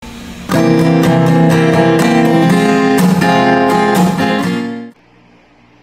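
Strummed acoustic guitar music, a run of chords starting about half a second in and cutting off just before the end, leaving faint background hiss.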